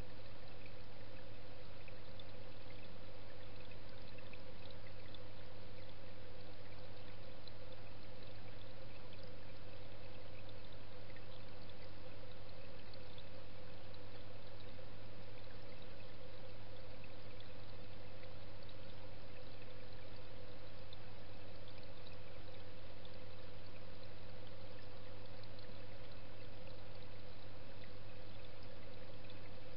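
Steady rush of circulating pond water with a constant low hum, heard through a camera submerged in the pond, as from the pond's pump and hose return running.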